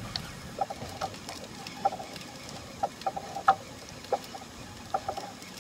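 Spinning reel (a Shimano Saragosa 10000) being cranked to wind a hooked fish up from the depths, giving faint, irregular clicking ticks.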